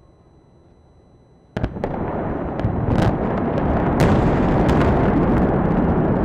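Explosive charges going off in the controlled implosion of a domed stadium: a sudden loud blast about a second and a half in, then a continuous heavy rumble with repeated sharp cracks over it.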